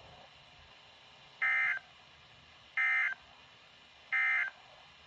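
Emergency Alert System end-of-message signal: three short, identical bursts of digital SAME data tones about 1.4 seconds apart, marking the end of the alert.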